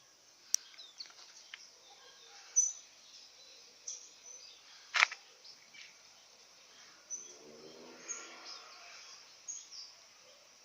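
Quiet outdoor ambience with scattered short bird chirps and a few sharp clicks, the loudest about halfway through; a faint distant voice a little after the middle.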